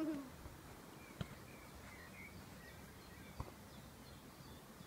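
Quiet outdoor ambience with faint bird chirps and two soft knocks.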